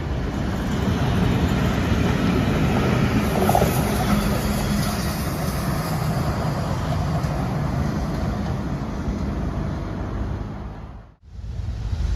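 A passenger train of heritage carriages rolling past with a steady, loud rumble and rattle of wheels on the rails, followed by the steam locomotive 3801 running by. The sound cuts off abruptly about a second before the end.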